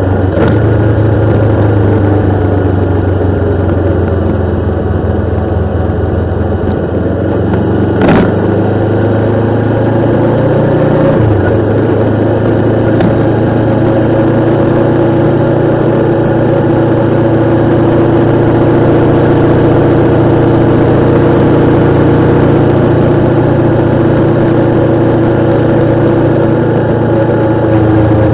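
Motorcycle engine running steadily while riding. Its pitch eases down over the first few seconds, then climbs slowly through the rest. A single sharp knock comes about eight seconds in.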